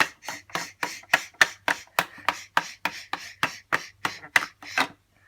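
A small box of washing powder shaken out into a toy washing machine: a quick, even run of sharp rattling strokes, about three and a half a second, that stops just before the end.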